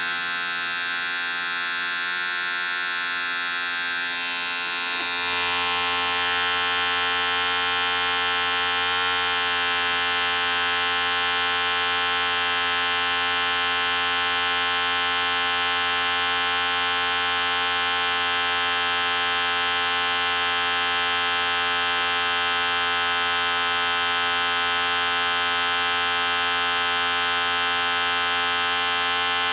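Electric hair clipper running steadily. About five seconds in it gets louder and brighter, then holds steady.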